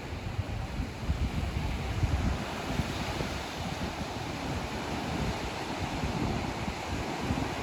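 Ocean waves washing onto a beach, a steady surf noise, with wind buffeting the microphone in low gusts, heaviest in the first couple of seconds.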